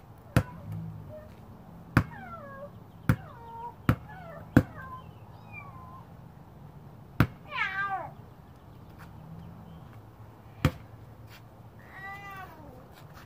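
A basketball bouncing on a concrete driveway several times, each bounce answered by a child's high, falling cat-like meow imitation.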